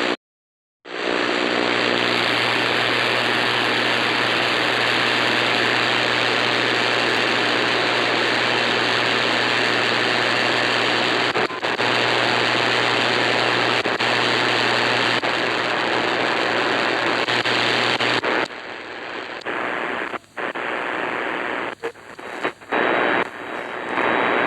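Portable radio giving out loud, steady static hiss with a low hum, the sound of a frequency whose station has gone off the air. About eighteen seconds in the hiss drops and cuts in and out several times as the radio is tuned across the dial.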